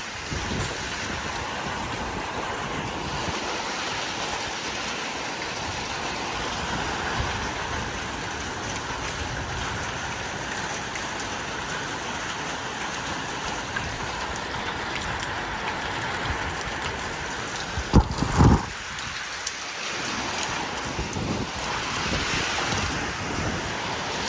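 Heavy rain pouring steadily with strong wind in a severe thunderstorm. About three-quarters of the way through there is one brief loud thump.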